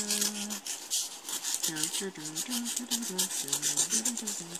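Paper envelope being cut open along its edge with a small blade: a rapid, continuous rasping scrape of the cut through the paper.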